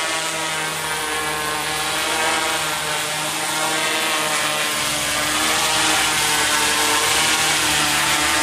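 Tarot FY650 quadcopter's four Tarot 4114 320kv brushless motors spinning 16x5 carbon propellers: a steady many-toned drone hum that gradually gets louder.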